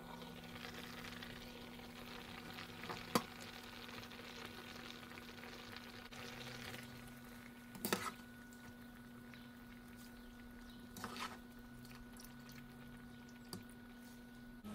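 Meat and broth sizzling faintly in a pan over a steady hum, with a few sharp knocks against the pan about three, eight and eleven seconds in.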